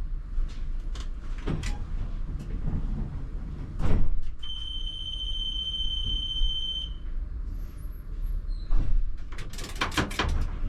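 Tatra T3R tram standing at a stop with its passenger doors working: a few heavy clunks, a steady high warning beep about two seconds long near the middle, then a rattling cluster of door clunks near the end.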